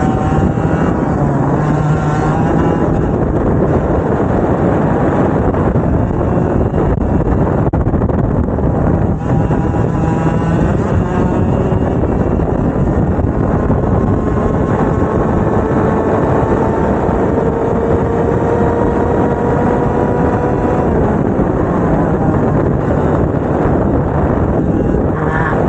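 Two-stroke racing kart engine running hard, its pitch climbing slowly for several seconds and then dropping off suddenly about twenty seconds in, with other rises and falls in revs around it.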